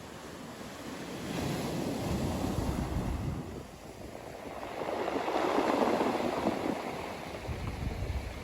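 Ocean waves breaking on a beach, surging in twice: once a little over a second in, and again, louder, about five seconds in.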